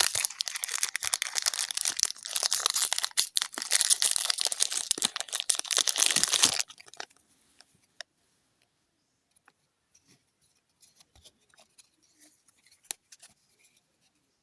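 Foil wrapper of a Yu-Gi-Oh Light of Destruction booster pack being torn open and crinkled, a loud crackling rustle that stops suddenly about six and a half seconds in. After that only faint, scattered light ticks remain.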